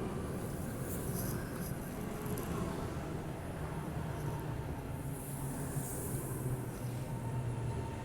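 A train passing: a steady low rumble, with a brief high-pitched hiss about a second in and again around six seconds.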